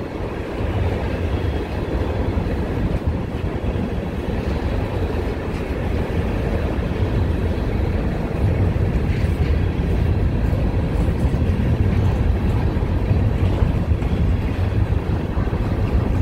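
Freight train of open-top hopper cars rolling past: a steady rumble of steel wheels on the rails, with a few faint clicks partway through.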